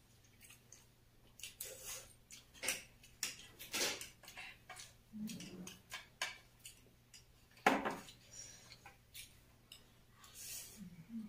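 Forks clinking and scraping on ceramic plates during eating, with noodles being slurped in several short noisy bursts; the loudest burst comes near the end of the second third.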